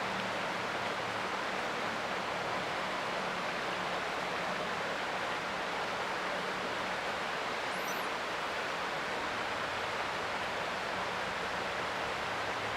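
Creek water flowing in a steady, even rush. A faint low hum sits underneath, and a brief faint high chirp comes about eight seconds in.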